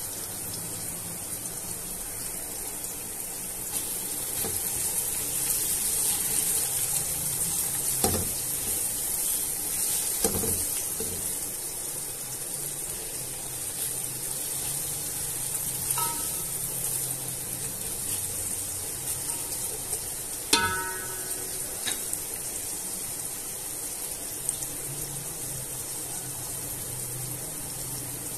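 Diced carrots and garlic sizzling steadily in oil in a metal pot on low heat. A spatula stirs them, with a few short knocks against the pot, one about twenty seconds in ringing briefly.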